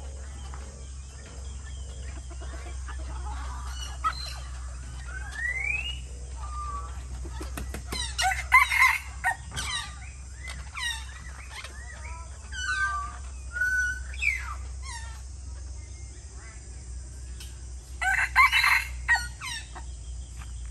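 A rooster crowing twice, about eight seconds in and again near the end, among scattered whistles and rising chirps from other caged birds.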